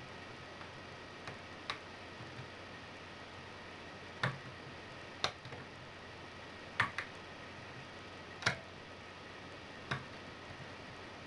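Lock pick and tension wrench working the spring-loaded pins of a MILA Evolution euro profile cylinder: about eight sharp metallic clicks at irregular spacing, over a steady low hiss.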